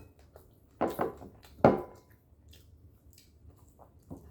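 Eating sounds at a meal table: three short sharp clicks and smacks in quick succession about a second in, then faint small mouth and table noises.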